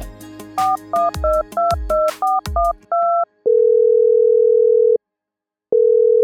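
Telephone keypad tones: about eight quick two-note touch-tone beeps over cartoon background music, then the music stops and a steady ringing tone sounds for about a second and a half, breaks off briefly, and starts again: a call being dialled and ringing on the line.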